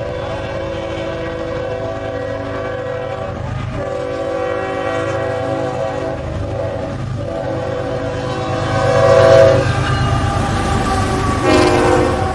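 Freight locomotive's multi-note air horn sounding for a grade crossing: three long blasts back to back, a short gap, then a fourth near the end, over the low rumble of the train approaching and passing.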